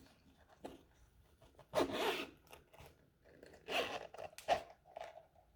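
A box being opened by hand, with a few short bursts of rustling and scraping from the packaging, the loudest about two seconds in.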